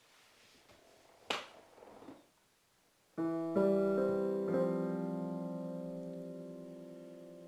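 A sharp click and faint rustling, then about three seconds in a piano starts the song's intro: a few chords struck one after another, left to ring and slowly fade.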